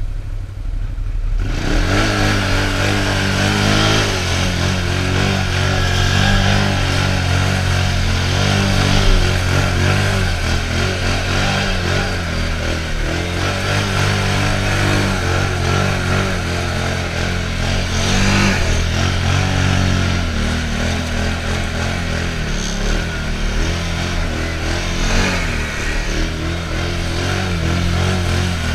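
Can-Am Outlander XMR ATV's V-twin engine running hard under load, its pitch rising and falling with the throttle as the quad pushes through deep swamp water, with continuous splashing and churning of water and mud.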